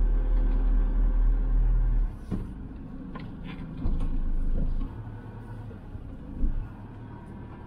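Motorhome driving, its engine and road rumble loud and low. The rumble drops sharply about two seconds in as the vehicle eases off, and is followed by a few short knocks and a quieter, steady running sound.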